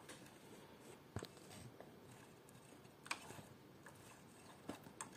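Near silence broken by about four faint clicks as the Happy embroidery machine's thread catcher mechanism is moved by hand.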